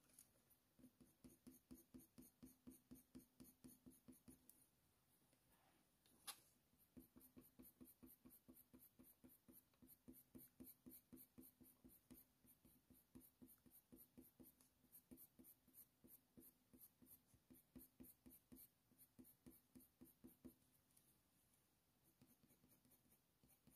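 Faint, rapid scratching of a Faber-Castell Polychromos colour pencil making short hatching strokes on hot-press watercolour paper, with one louder tick about six seconds in. The strokes stop a few seconds before the end.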